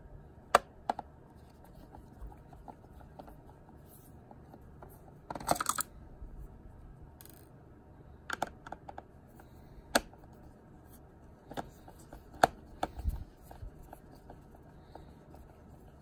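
A small screwdriver turning out the tiny screws that hold a laptop's hard-drive caddy: scattered light clicks and scrapes of the bit in the screw heads, with a short cluster of clicks about five seconds in.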